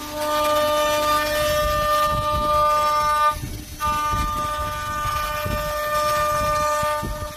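High-speed spindle of a 5-axis CNC woodworking machine running with a steady high whine while it cuts wood, with rough low grinding under it. The whine breaks off briefly about three and a half seconds in, then resumes.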